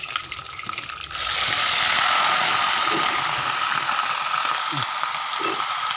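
Food frying in hot oil in a wok: a loud sizzle starts suddenly about a second in and then holds steady, with a faint steady whine under it.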